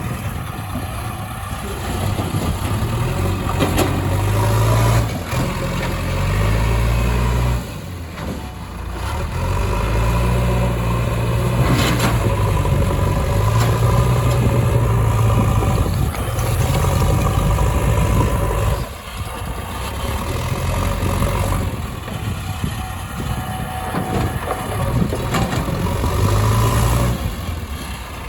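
Heavy diesel engine running, its revs rising and falling every few seconds as the load changes, with a few sharp knocks or clanks.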